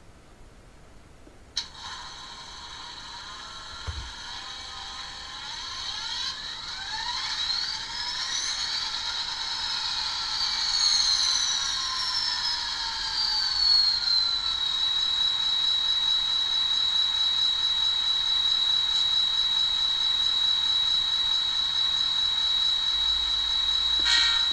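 Soundtraxx Econami sound decoder in an N scale Bachmann GP40, playing diesel locomotive engine sounds through its tiny speaker, thin and with no bass. There is a click early, then rising and falling pitches as the engine sound winds up, settling into a steady high-pitched drone.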